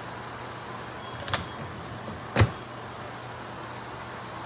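Metal tongs knocking against a skillet while tossing spinach: a light tap about a second and a half in and a sharper knock a little past halfway, over a steady low hiss.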